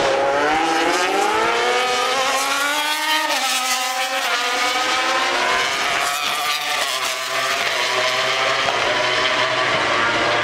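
Racing motorcycle engine revving: its pitch climbs steadily for about three seconds, drops sharply, then climbs again more gently.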